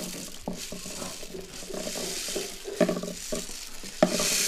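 Rain stick tipped over, its beads trickling down inside the tube in a steady hiss, with a few knocks and rattles from a second hand-held percussion instrument.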